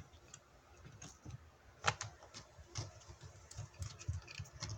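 A cat scrabbling at a lid on a concrete floor: scattered light clicks and scrapes, with a louder knock about two seconds in.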